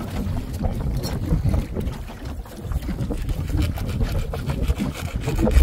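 Wind buffeting the microphone out on open water: an uneven low rumble that rises and falls, with no steady engine tone.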